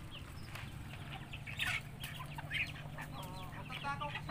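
Native chickens clucking: several short calls, coming closer together towards the end.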